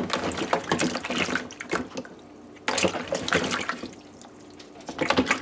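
Hands washing cut mango pieces in a plastic bowl of water in a steel sink: water splashing and sloshing and the pieces knocking about as they are rubbed, in three bouts.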